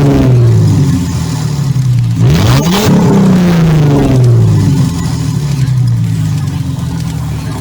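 Mercedes-Benz W210 E320's 3.2-litre V6 revved twice, the pitch climbing quickly and then falling back slowly each time, with the engine still running when it settles.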